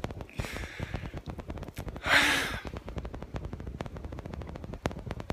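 A person's breathy exhale or sigh, loudest about two seconds in, with a softer breath just before it, over a steady run of small clicks and crackles.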